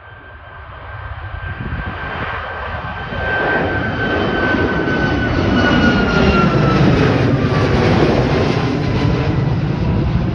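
Boeing 737 airliner's twin jet engines at takeoff power as it climbs out and passes overhead. The roar builds over the first few seconds and stays loud, with a high engine whine that slowly falls in pitch as the jet goes by.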